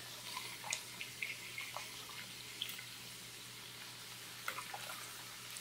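Pork and chicken frying in an aluminium wok with a soft, steady sizzle, broken by a few light clicks of a metal ladle as raw chicken livers are scooped into the pan.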